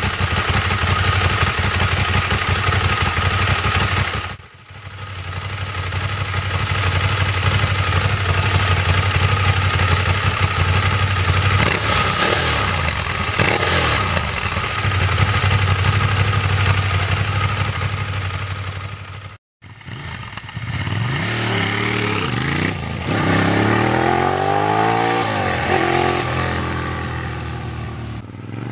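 A Ducati sport bike's V-twin engine runs steadily through its twin underseat exhausts, with a few short throttle blips. After a brief cut, it is revved up and down repeatedly in rising and falling sweeps.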